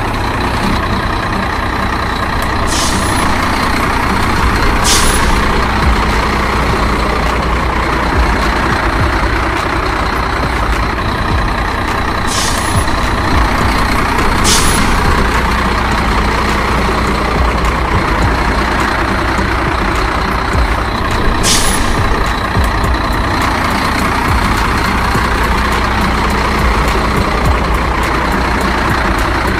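Heavy truck engine sound running steadily, with a short air-brake hiss five times, every few seconds.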